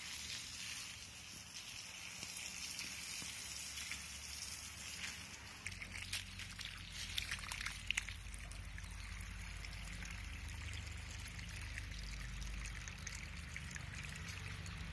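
Water from a garden hose pouring and trickling onto leaf-mulched soil, a steady faint hiss, with a few light crackles about halfway through.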